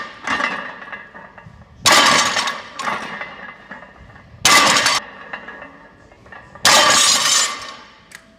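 Steel barbell weight plates clanking loudly. There are three sharp metal-on-metal clangs about two and a half seconds apart, each ringing briefly.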